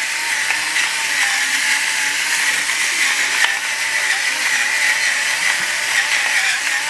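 Battery-powered electric salt grinder running continuously as it grinds salt into a pot. It makes a steady grinding whir with a faint wavering motor whine and a few sharp ticks from cracking salt crystals.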